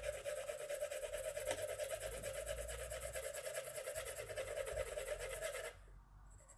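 Graphite pencil shading on printer paper: rapid, even back-and-forth strokes scratching across the paper, stopping shortly before the end.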